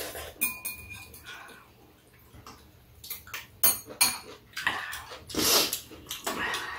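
Eating noises: metal chopsticks and spoons clicking against bowls several times, with two longer noisy slurps about five and six seconds in.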